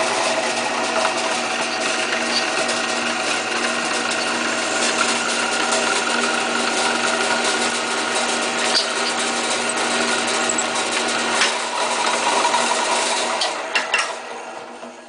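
Bench drill press motor running steadily with a constant hum, a few light clicks late on, then dying away near the end.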